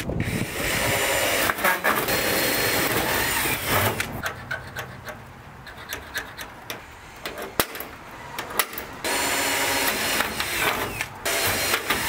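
Cordless drill running as it bores rivet holes through aluminum sheet: one spell of drilling for the first few seconds and another shorter one about three-quarters of the way through. Between them are quieter scattered clicks and taps of hand tools and clecos on the metal.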